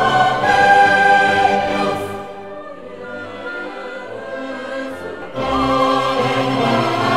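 Dramatic orchestral music with choir voices, easing off in the middle and swelling again about five seconds in.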